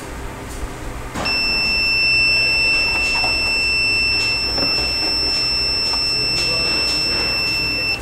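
Buzzer on a PIC16F877A keypad door-lock board sounding one continuous high-pitched alarm tone. The tone signals a wrong code entered at the keypad. It starts about a second in and cuts off suddenly near the end.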